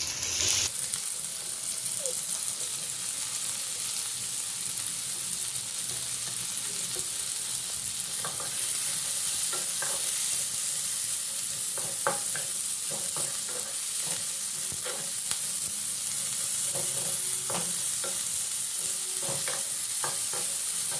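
Chopped onions frying in hot oil in a kadai, a steady sizzle that grows a little brighter about a second in. A spatula stirring them clicks and scrapes against the pan, often in the second half.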